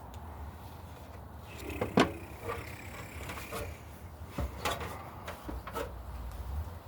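Wire cutters snipping copper electrical wires to even length, with one sharp snip about two seconds in, then a series of lighter clicks as the tool and wires are handled. A low steady hum runs underneath.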